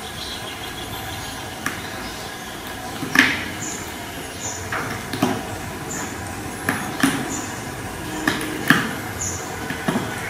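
A kitten playing with a string tied to a gold-coloured pedestal bowl: irregular knocks and taps from its paws and the bowl on the hard floor, about a dozen in all, loudest about three seconds in and near the end, over a steady background hiss.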